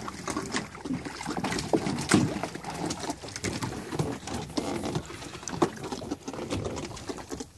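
Water slapping and splashing against the side of a small fibreglass boat, with many irregular short knocks.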